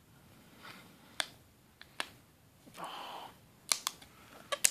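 Fingernail picking at the edge of a metal Blu-ray steelbook's front cover to peel it off: several sharp, separate clicks of nail against the case, with a short rustling hiss about three seconds in.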